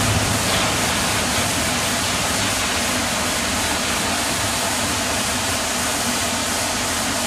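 John Deere tractor's engine running as it tows a loaded grain trailer away, a low hum under a steady rushing noise; the engine note eases off slightly as it draws away.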